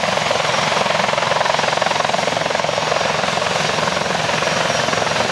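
Eurocopter X3 compound helicopter running on the ground, its five-bladed main rotor, two propellers and twin turboshaft engines all turning. The sound is a loud, steady, fast blade chop that does not change.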